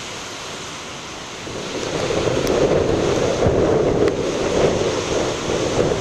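Heavy storm surf breaking and washing over shoreline rocks, with wind buffeting the microphone. The rush of water swells up about a second and a half in and stays loud.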